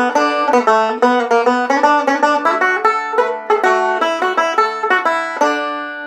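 Deering Eagle II banjo played solo, a quick, even run of picked notes. Near the end a chord is left ringing for about half a second.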